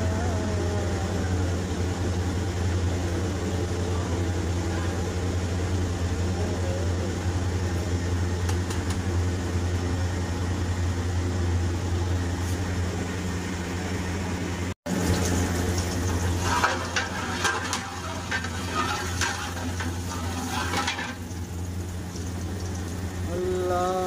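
Oil heating in an aluminium pot over a steady low hum from the stove. After a brief dropout about two-thirds through, a few seconds of sizzling and a metal ladle scraping and stirring in the pot.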